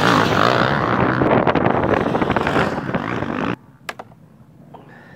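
Dirt bike engines running over a loud, dense outdoor noise. About three and a half seconds in, the noise cuts off abruptly to quiet, with a few sharp clicks.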